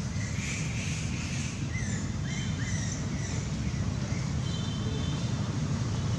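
Steady low rumble of wind on the microphone, with faint short high chirps and squeaks over it, most in the first half.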